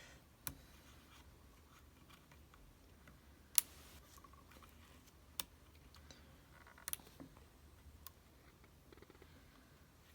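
Small switches on a breadboard circuit being flipped by hand: about five sharp, separate clicks at irregular intervals over a faint steady hum.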